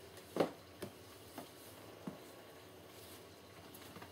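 Cardboard box being handled and turned on a worktop: a handful of soft knocks and scuffs, the loudest about half a second in.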